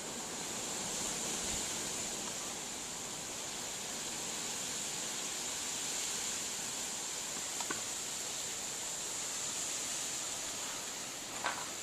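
Steady hiss of blizzard wind and blowing snow, with a couple of faint clicks about eight seconds in and near the end.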